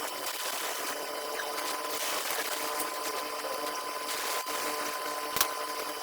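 Small electric motor of an air mattress pump running steadily, with a high hum under an airy hiss and one sharp click near the end.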